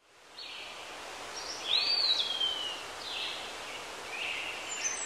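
Outdoor ambience fading in: birds calling over a steady hiss, with several hoarse calls and one clear whistled note about two seconds in that rises and then slides slowly down.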